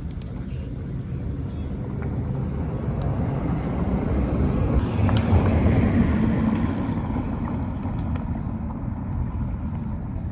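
A vehicle passing by: a low engine and tyre rumble swells to a peak about halfway through, then slowly fades away.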